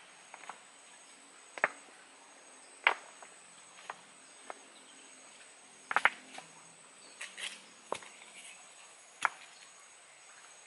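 Stones knocking against one another as they are set down by hand: about eight sharp, scattered clacks. A thin, steady high insect drone runs behind them.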